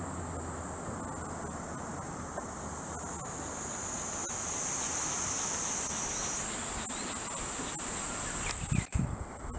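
Cicadas buzzing in a steady, high drone that swells louder through the middle. There is a brief knock near the end.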